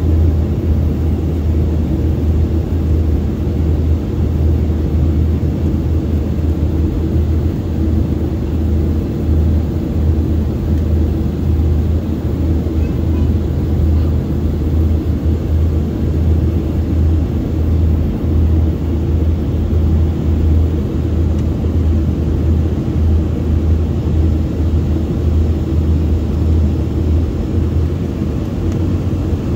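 Steady cabin noise of an Embraer 145 regional jet on descent: a low drone from its rear-mounted Rolls-Royce AE 3007 turbofans, mixed with airflow over the fuselage.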